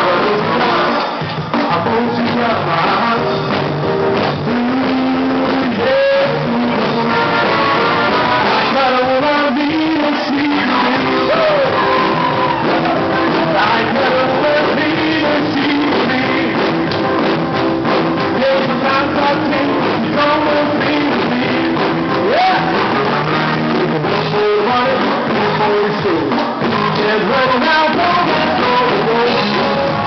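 Loud dance music with singing.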